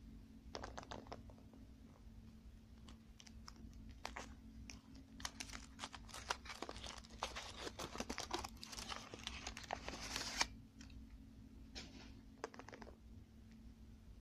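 Thin foil wrapper crinkling and tearing as it is peeled by hand off a chocolate ball. The crackling comes in scattered bits at first, is densest in the middle, stops abruptly about ten and a half seconds in, then a few last crinkles follow.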